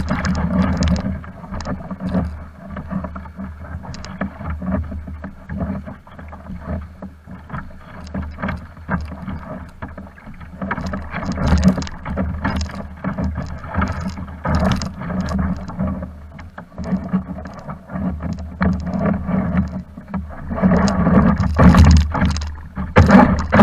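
Small waves lapping and splashing against the hull of a Pro Boat Blackjack 42 RC boat sitting in the shallows, a stream of small irregular splashes and knocks. The splashing grows louder near the end.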